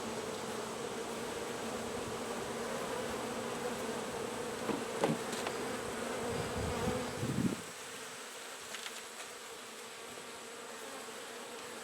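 Honey bees humming steadily around an open nucleus hive, with a few soft knocks about halfway through. The hum drops a little about two-thirds of the way in.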